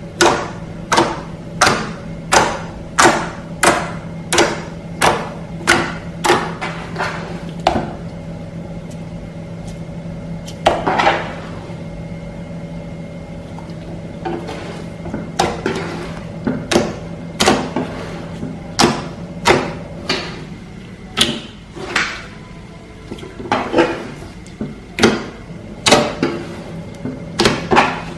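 Glossy slime being squeezed and poked, giving sharp wet clicks and pops about once or twice a second, with a pause in the middle. A steady low hum runs underneath.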